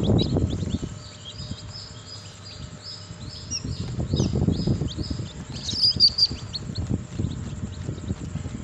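Newly hatched chicks peeping: a run of short, high, evenly spaced peeps about three a second, then a few louder shrill chirps about six seconds in. Low rustling noise comes and goes under them.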